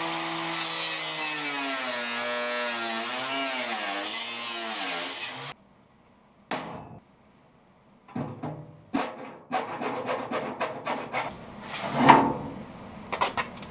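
A power tool's motor running for about five and a half seconds, its pitch dipping and wavering as it works under load, most likely cutting the hole for the motor's power cord. It stops abruptly, and after a short gap comes a run of irregular clicks and rasps.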